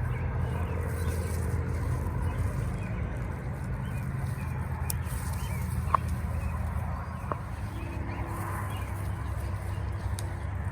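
A steady low hum, with two short sharp clicks about six and seven seconds in.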